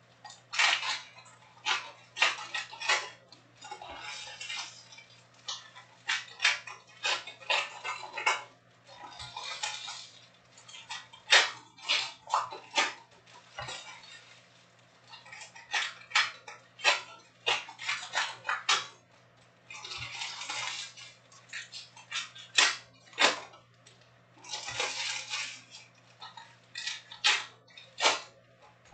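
Topps Chrome trading-card packs being torn open and the cards handled: the foil wrappers crinkle in short bursts, and the stiff cards click and snap as they are flipped through and laid onto stacks. A steady low hum runs underneath.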